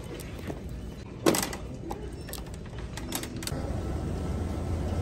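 Plastic-and-wire shopping cart clicking and knocking as it is handled, with one louder knock about a second in. A low steady hum sets in past the midpoint.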